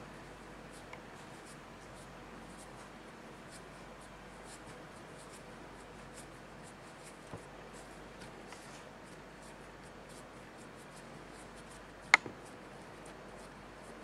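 Faint rubbing and rustling of hands rolling and pressing bread dough into a log on a floured silicone baking mat. A single sharp click comes about twelve seconds in.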